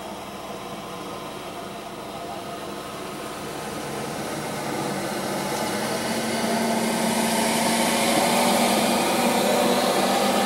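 Tanker semi-truck driving through shallow floodwater: its diesel engine runs steadily while its tyres splash through the water. The sound grows louder over the first several seconds as the truck comes close and passes.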